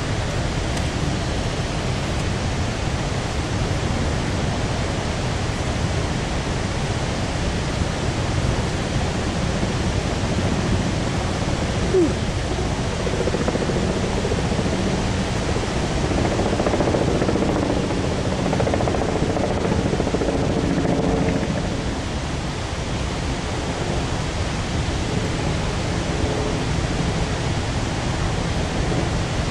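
Steady low roar of distant falling water from Victoria Falls and the Zambezi gorge. A single short squeak comes about a third of the way through, and a faint hum runs under the roar through the middle part.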